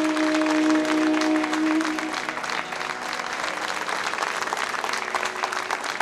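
Audience applauding at the end of a ghazal performance. Over the first two seconds a held note of the accompaniment sustains and then fades, leaving the clapping alone.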